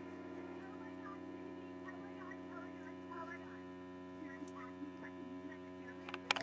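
Steady electrical mains hum on the recording, with faint, wavering high chirps in the middle and a few sharp clicks near the end as fingers handle the camera.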